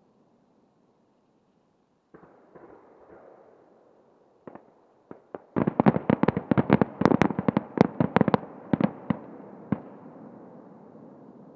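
Aerial fireworks bursting: a faint rumble about two seconds in, a few single bangs, then a dense run of sharp bangs lasting about four seconds, followed by a rumbling echo that trails off.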